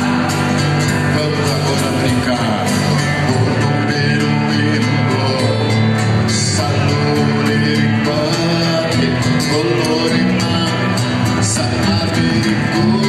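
A live band playing a song, with a male voice singing over it and a steady, regular percussion beat.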